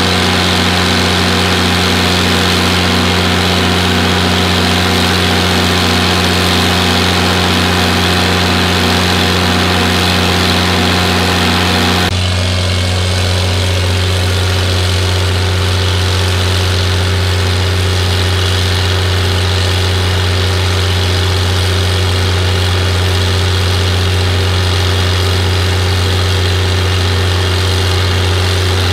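Six-cylinder stationary diesel engine running steadily at constant speed under load, driving a 3300 gpm center pivot irrigation pump. About twelve seconds in the sound changes abruptly, becoming duller with less high hiss and a stronger low hum.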